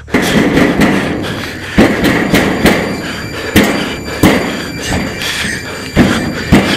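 Repeated heavy thumps against a wooden door, about nine blows at uneven intervals.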